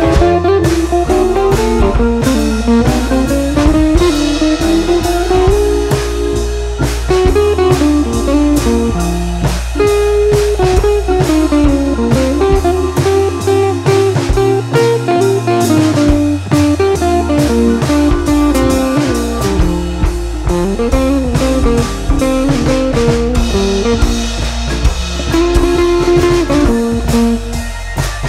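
Background music: a blues-style electric guitar tune with bending notes over drums and bass. The deep bass drops out for a few seconds about halfway through.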